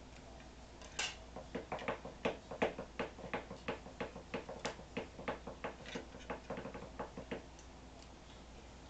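A quick run of sharp clicks, about three a second, starting about a second in and stopping after some six seconds, with a faint steady hum underneath.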